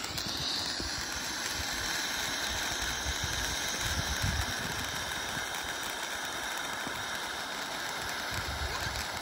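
A lit firework hissing steadily as it burns, with no bangs.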